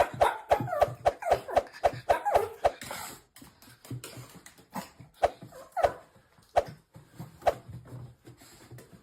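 A Chihuahua making short, high, pitch-bending whining calls in quick succession for about three seconds, then only now and then. Sharp clicks run between the calls.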